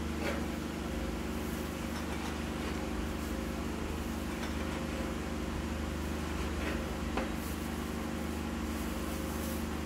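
A bread knife cuts the crusts off slices of loaf bread on a wooden cutting board, with a few light knocks of the blade on the board. Under it runs a steady mechanical hum, like a fan or air conditioner.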